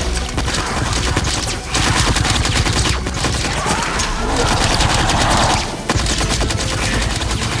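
Rapid sci-fi weapon fire sound effects: a dense, sustained volley of shots with a short break about six seconds in.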